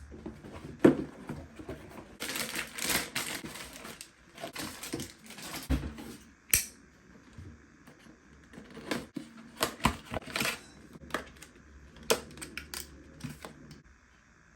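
Irregular clicks, taps and rustling from computer parts being handled and fitted into a small PC case, with a louder stretch of rustling a couple of seconds in.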